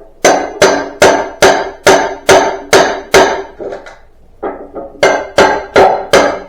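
Steady hammer blows, about two a second, each with a short metallic ring, pausing briefly a little past the middle before starting again; this comes from hammering while breaking down pallets and salvaging their nails.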